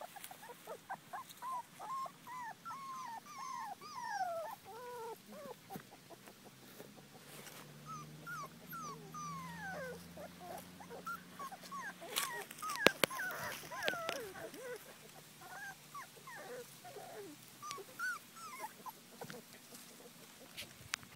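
Brittany puppies whimpering and whining: many short, high calls that slide up and down in pitch, often overlapping. A few sharp knocks a little past the middle are the loudest sounds.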